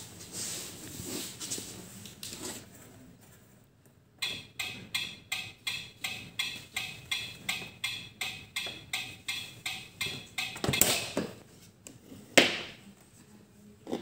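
Electronic sound effect from a Smoby toy kitchen's hob, set off by its buttons: a regular, evenly repeating pulse about three times a second. It is followed by a brief louder rustle and then a sharp plastic clack near the end.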